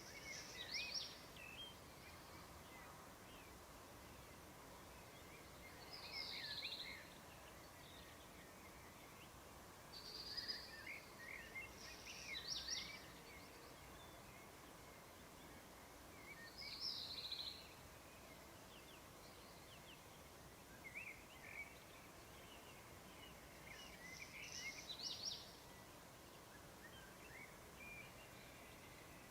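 Morning birdsong: short chirping phrases every four to six seconds over a faint, steady outdoor background hiss.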